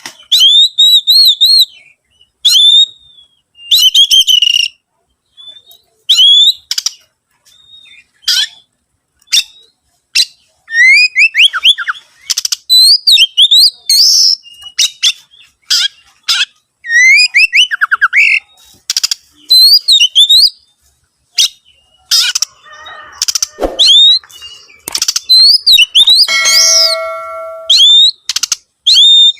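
Oriental magpie-robin (kacer) singing in short, rich whistled phrases with brief pauses between them, some sliding up and down in pitch. Near the end comes one held, steady lower note.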